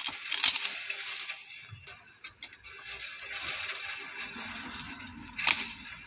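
Long-handled pruning shears snipping almond tree stems: a sharp snip at the start, another about half a second in and one near the end, with rustling of the branches in between.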